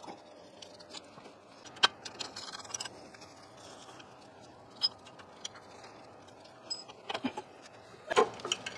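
Scattered sharp clicks and light metallic knocks and rattles from gloved hands working parts loose around an electric lathe motor. A crisp click comes about two seconds in and another near the middle, then a quick run of knocks near the end.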